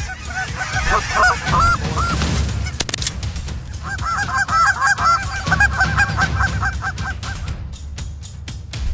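A flock of geese honking, many overlapping calls in two bursts, the second longer and denser, over a steady low rumble.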